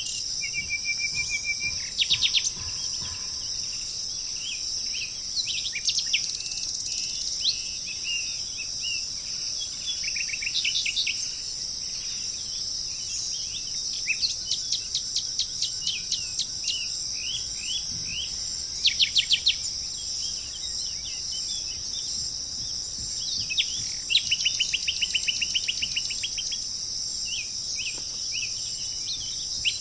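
Small birds singing in repeated rapid series of short, sharp notes and trills, over a steady high-pitched drone of chirping insects such as crickets.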